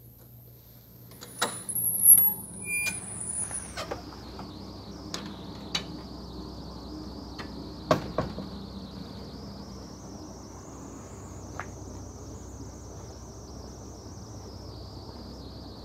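A glass door is pushed open and swings shut, with a few sharp clacks and a brief high squeal in the first few seconds. After that comes steady outdoor airport ramp noise with a faint high whine that drifts slowly in pitch, and one sharp knock about halfway through.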